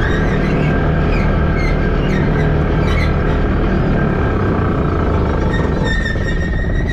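Shrimp trawler's diesel engine running steadily under way with its nets out, a constant low drone, with background music faint over it.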